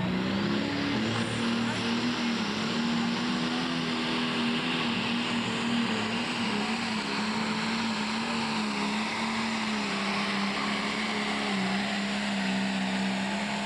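Pro stock pulling tractor's turbocharged diesel engine running flat out under load while pulling the sled, a loud, steady high note with small dips in pitch.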